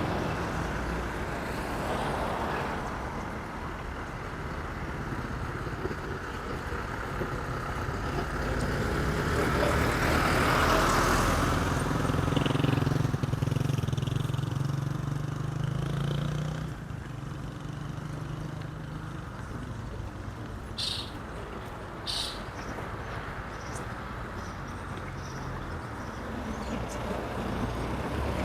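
Town street ambience with a motor vehicle passing: its engine and tyre noise swell to a peak about ten to twelve seconds in, with a low engine hum that then fades away. Two short sharp clicks sound near the end.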